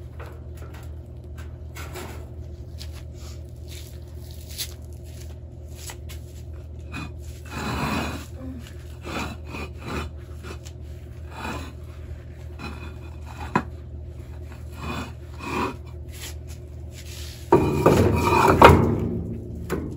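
Concrete pavers being handled and loaded into a wheelbarrow: several short scrapes of stone against stone, and near the end a loud run of scraping and knocking as a paver is slid in against the others.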